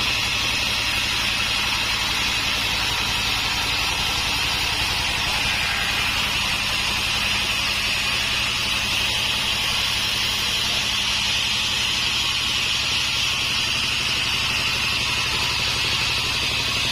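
Sawmill saw running steadily through an acacia log: a loud, high, hissing whine over a low, even motor drone. The whine brightens somewhat in the middle of the stretch.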